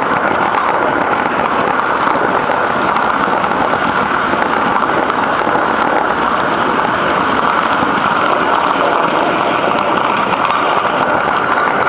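Gauge 1 live steam train running, heard from aboard one of its wagons: a loud, steady, rattling rush of the wagon wheels rolling on the rails, with the loco working under steam just ahead.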